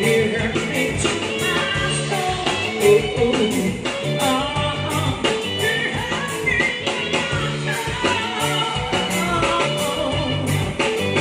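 Live band playing a rock song: electric guitar over a steady bass and drum beat, with a singer's voice.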